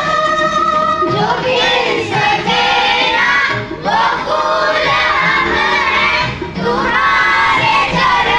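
A group of children singing a prayer together in unison, with long held notes and two brief pauses for breath.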